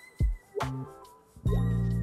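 Background music with a beat: bass notes, drum hits and held high notes.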